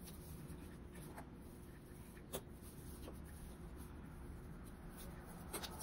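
Hands pulling paracord knots tight: faint rustling and a few soft clicks, the sharpest about two seconds in, over a low steady hum.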